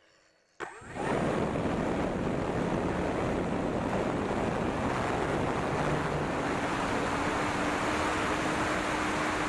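Electric motor and propeller of an E-flite P-47 model plane, heard from an onboard camera: a click about half a second in, then the motor comes up to power as a loud steady rush of prop wash and wind over the microphone during the takeoff roll. A faint steady whine joins in past the middle.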